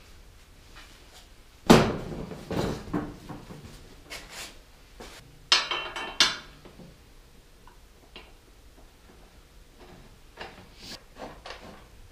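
A plastic Craftsman riding-mower seat being set down and shifted on its steel seat bracket: a loud knock about two seconds in, a few more knocks and rattles over the next few seconds, then light clicks near the end as the mounting is worked underneath.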